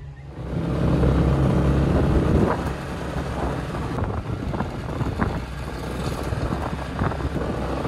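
Motor scooter running along a road, heard from the rider's seat: a steady engine and road rumble mixed with wind on the microphone, loudest in the first couple of seconds.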